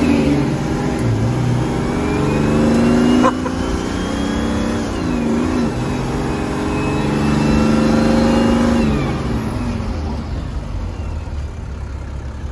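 Engine of an old van accelerating, heard from inside the cab. Its pitch climbs and drops twice, with a sharp click about three seconds in, then the engine eases off and quietens near the end.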